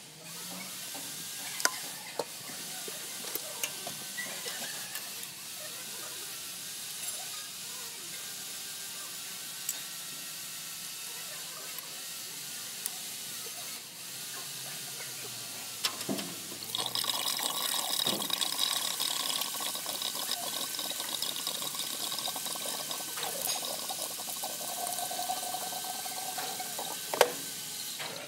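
Scattered metallic clinks of a wrench on the engine's fittings, then, about halfway through, engine coolant starts gushing out of the opened port by the water pump and splashing down steadily.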